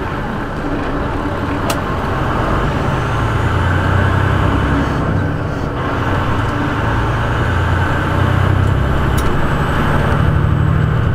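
Semi truck's diesel engine running, a steady low drone heard from inside the cab, swelling slightly a few seconds in.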